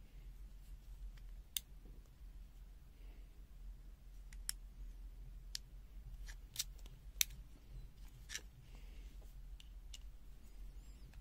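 Scattered sharp metal clicks and taps, about eight in all at irregular gaps, as the arms of an adjustable-angle welding magnet are pivoted and handled; the loudest click comes about seven seconds in. A low steady hum lies underneath.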